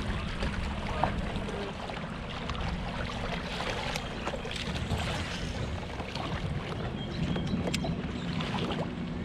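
Wind on the microphone and water lapping and splashing lightly around a kayak on open water, with a faint steady hum underneath.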